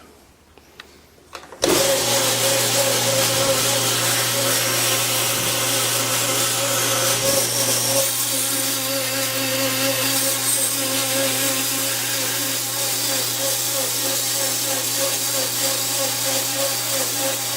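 Bandsaw switching on about a second and a half in and running steadily with a constant hum, cutting out a maple ratchet arm.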